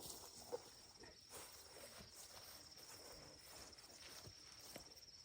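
A steady, high-pitched insect trill, pulsing rapidly and evenly, with faint scattered rustles and clicks; one sharper click about half a second in.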